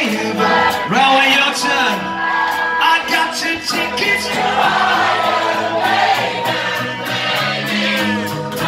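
Live rock band playing loudly over a steady drumbeat, with many voices singing along.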